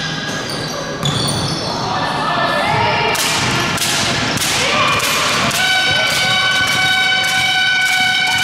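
Basketball game in a sports hall: sneakers squeaking on the court and a ball bouncing, with voices. About five and a half seconds in, a game horn starts and holds one steady tone.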